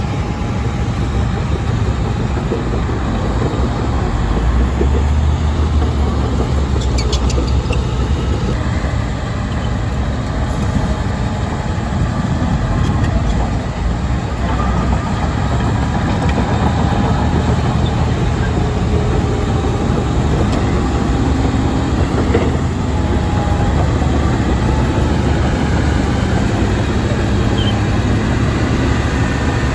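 Shantui DH17-C2 crawler bulldozer's diesel engine running steadily under load, its note drifting slightly up and down, with a few brief metallic clicks about seven seconds in.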